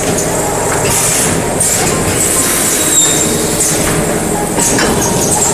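Automatic blister packing machine running: a steady mechanical clatter, with short high hisses every second or two from its compressed-air lines.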